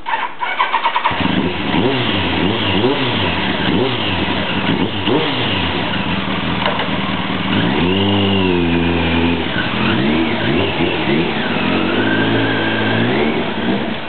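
Kawasaki ZZR1100's inline-four engine with an aftermarket carbon muffler: the starter cranks for about a second, the engine catches, and it is blipped repeatedly, with a couple of longer revs, before the motorcycle pulls away near the end.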